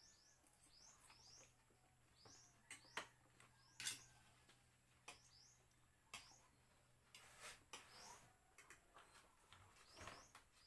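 Near silence with faint, short, high rising chirps repeating about twice a second, from a small bird. A few light clicks of cutlery on plates are scattered through it.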